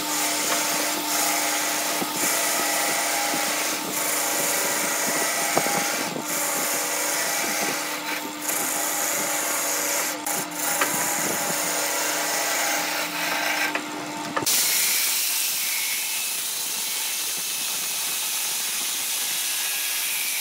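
Wood lathe running with a steady hum while a hand-held turning tool scrapes and cuts the inside of the spinning bamboo-chopstick-and-epoxy vessel, with frequent sharp scraping ticks. About fourteen seconds in, the sound switches abruptly to an even hiss as a sanding drum on an angle grinder sands the inside of the mouth.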